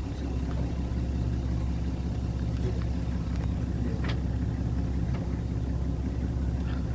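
Safari vehicle's engine idling with a steady low hum.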